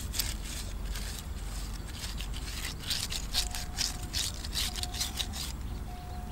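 A bundled green-leaf basting brush rubbed quickly back and forth over the skin of a whole spit-roasted chicken, making a rapid run of scratchy swishing strokes that is densest in the middle. The strokes are basting the roasting chicken with a marinade.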